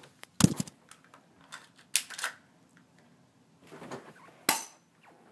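Sharp clicks and knocks in three groups, about half a second in, at two seconds and at four and a half seconds, the loudest at the start, with faint rustling between them.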